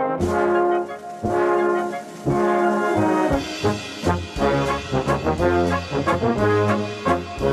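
Large Bohemian-style brass band playing a waltz, in a warm, heavily reverberant studio sound. Flugelhorns, tenor horns and baritones play in phrases with vibrato over tubas and trombones. About three seconds in, the drums come in with cymbals and the accompaniment takes up a steady rhythm.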